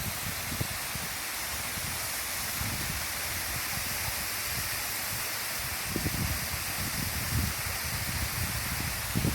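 Waterfall rushing with a steady hiss of falling water, with uneven low rumbles that come and go, stronger in the second half.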